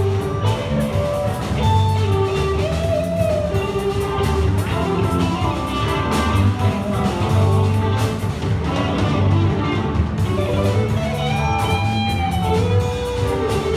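A rock band playing live, a guitar leading over drums, with pitch-bent notes near the end.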